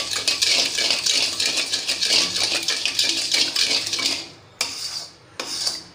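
Flat wooden spatula stirring sugar and water in a stainless steel kadai, a dense gritty scraping of the not-yet-dissolved sugar against the metal. It stops about four seconds in, and two short scrapes follow.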